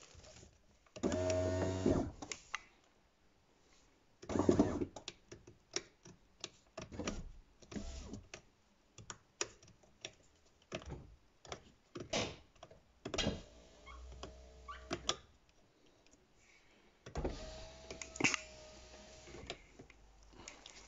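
Plastic clicks and knocks from door trim and the window switch panel being handled, with several one-to-two-second runs of a VW Passat B6's newly fitted electric window motor driving the glass, each run carrying a steady tone.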